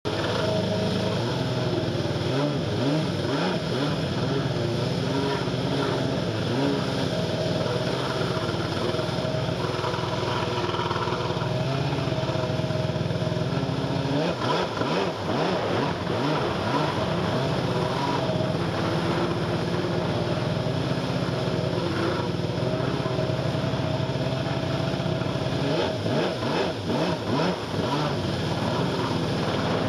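A stand-up jet ski's engine running at speed close by, its pitch wavering up and down with the throttle over the rush of water and spray.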